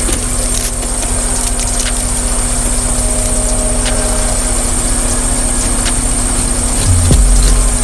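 Diesel engine of an 18-wheeler semi truck idling steadily, started back up to run the heater, with a few faint clicks over it. The low rumble gets louder about seven seconds in.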